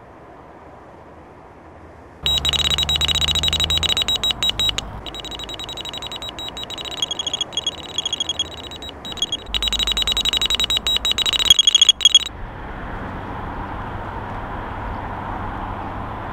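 Delkim electronic carp bite alarm sounding a loud, high steady tone that breaks into fast stuttering beeps, as line is drawn through it. It starts about two seconds in and cuts off abruptly about twelve seconds in.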